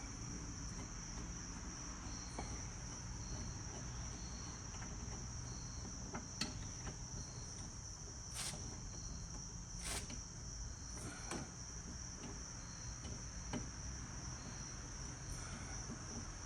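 A steady, high-pitched trill of crickets, with a few sharp clicks and taps from the hose end being handled and screwed onto a water faucet.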